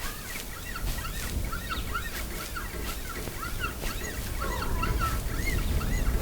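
Many birds calling in a dense chorus of short, arched chirps, several a second, over a steady low rumble.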